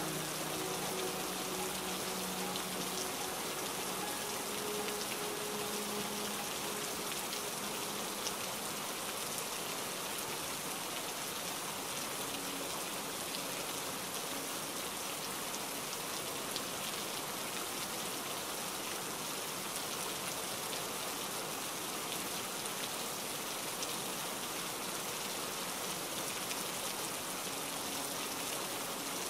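Steady heavy rain: an even, unbroken hiss of dense drops falling on surfaces.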